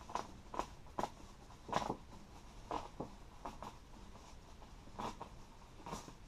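Cardboard box and packing being handled and opened: short, irregular scrapes and rustles, about one every half second to second.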